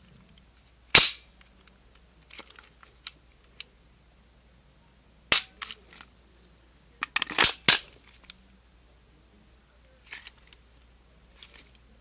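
Sharp, loud cracks from a Glock 35 .40 S&W pistol: one about a second in, another around five seconds in, then a quick run of four shortly after, with softer clicks in between.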